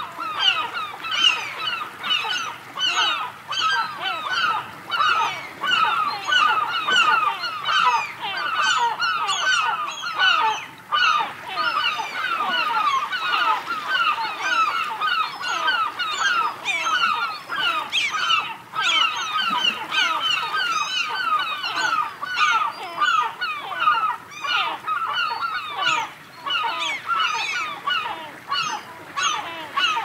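A large flock of birds calling without a break, many short calls overlapping several times a second.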